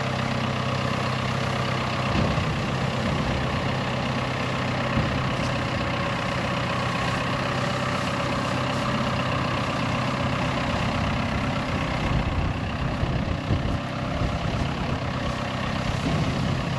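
Engine of a piece of heavy equipment idling steadily, its low hum getting rougher and more uneven about three-quarters of the way through.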